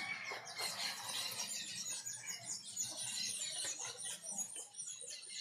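Birds chirping: a quick run of short, high-pitched falling notes.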